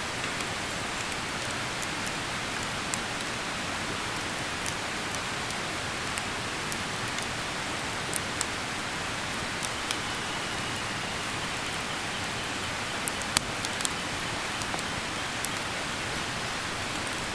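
Wood campfire crackling: a steady hiss with scattered sharp pops and snaps, the loudest in a small cluster about thirteen seconds in.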